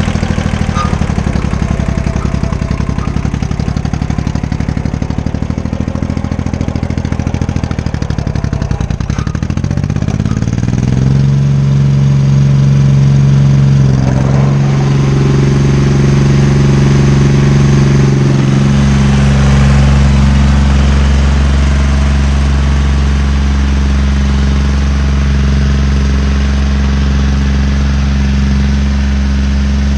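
Small farm tractor's engine running slowly with a rough beat, then revving up about ten seconds in and holding a steady higher speed as the tractor pulls an implement through the soil.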